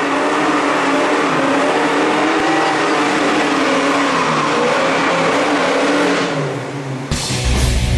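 Classic Ford Mustang doing a burnout, its engine held at high revs while the rear tyres squeal. The engine eases off near the end, and heavy rock music starts sharply about a second before the end.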